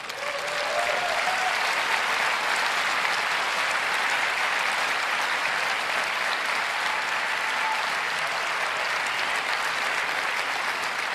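Large auditorium audience applauding steadily, with a brief cheer about a second in and the clapping easing off near the end.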